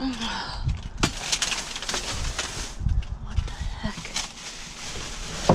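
Plastic sheeting and bags rustling, with debris knocking and clattering, as a reach-grabber tool pokes through trash. Several sharp clicks and knocks, the loudest about a second in and near the end.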